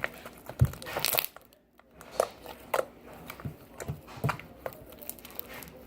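Slime being squished and pulled in the hands, with a string of irregular sharp pops and crackles as air pockets in it burst.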